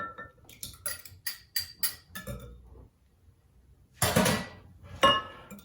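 A utensil clinking rapidly against a small bowl as an egg is beaten into water, followed by a louder clatter and a single knock near the end.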